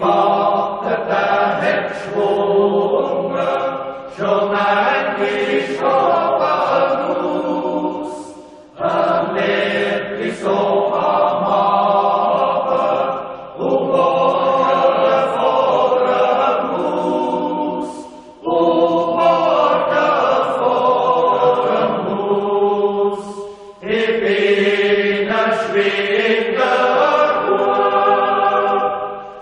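Background music: a choir singing slow, held chant-like phrases, each a few seconds long, with brief breaks between them.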